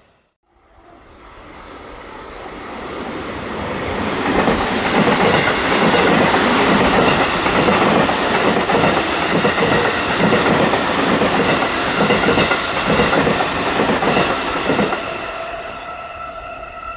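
Electric passenger train passing through the station at speed: the rumble builds, the wheels clatter rhythmically over the rail joints for about ten seconds, then it dies away while a few steady tones linger near the end.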